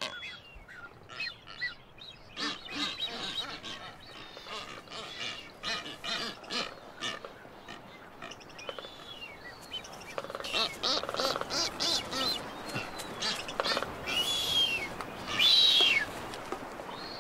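Blue-footed boobies calling during a courtship display: a run of short, repeated calls, with two loud rising-then-falling whistles a couple of seconds before the end. The male booby whistles and the female honks.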